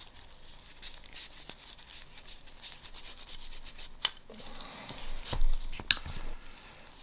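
Rubbing and scraping as Glock pistol parts are wiped and scrubbed by hand. A sharp click comes about four seconds in and another near six seconds, with a dull knock in between.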